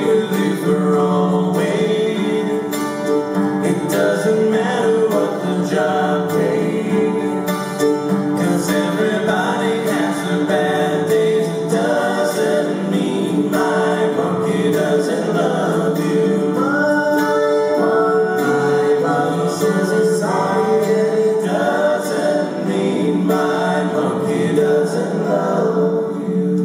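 Live acoustic pop song: four voices singing together in harmony, with acoustic guitar and ukulele accompaniment.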